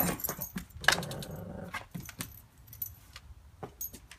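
A large mastiff-type dog's metal collar tags jingling as it walks in through a doorway, with scattered clicks and a sharp knock about a second in.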